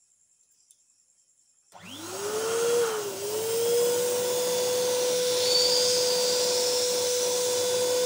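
Near silence, then about two seconds in an electric balloon pump starts: its motor whine rises and settles at a steady pitch over a rush of air as it inflates a latex balloon.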